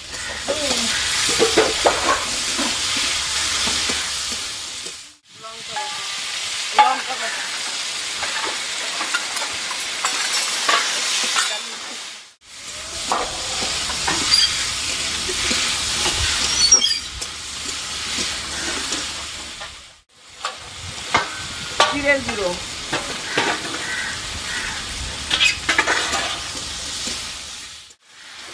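Squash pieces sizzling as they fry in a metal wok, with a metal spatula stirring and scraping against the pan. The sizzle drops out briefly three times.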